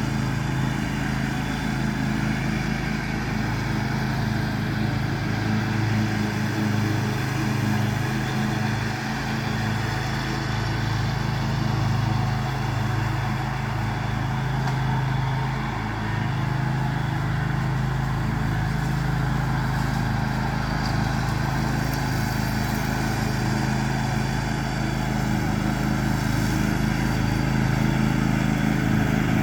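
John Deere X500 riding lawn tractor running steadily at a constant engine speed while mowing grass.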